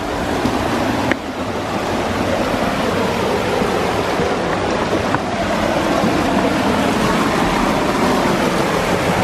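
Fast-flowing stream rushing over rocks, a loud steady wash of water, with a sharp knock about a second in.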